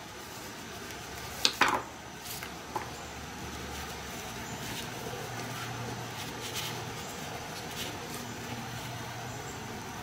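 Small metal hand-tool and rivet parts clicking while a nylon dog collar is worked by hand. There are two sharp clicks close together about a second and a half in and a smaller one a second later, then soft handling of the collar webbing.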